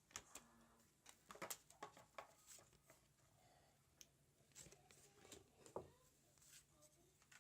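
Near silence broken by faint, scattered clicks and soft rustles of trading cards being handled and flipped through. A brief, slightly louder tick comes about six seconds in.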